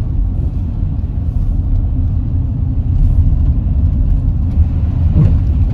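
Car driving at steady speed, heard from inside the cabin as a steady low rumble of road and engine noise.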